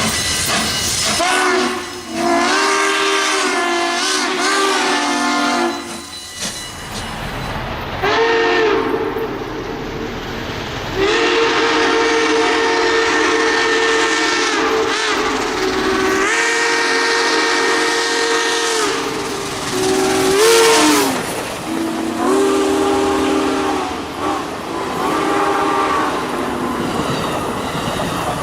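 Steam locomotive whistle blowing a series of long and short blasts, some bending in pitch, with steam hissing between them.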